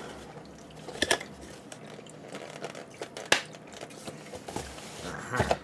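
Cardboard packaging being handled: a white fan-pack box opened and its inner cardboard box slid out, with scattered taps, scrapes and rustles. The sharpest knock comes a little over three seconds in, and a cluster of handling noises comes near the end.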